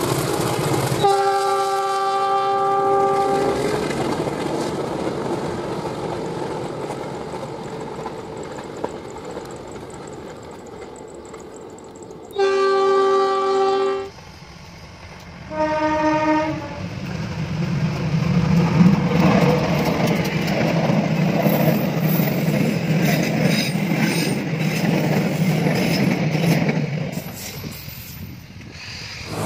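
Bus air horns sounding three times: a blast of about two and a half seconds a second in, another of about a second and a half some twelve seconds in, and a short one just after. Then a loud, deep engine and exhaust rumble for about ten seconds, dying away near the end.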